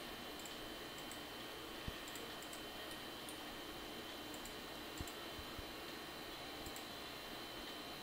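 Scattered computer mouse clicks over a steady hiss of microphone noise with a thin high whine, the strongest click about two seconds in and another about five seconds in.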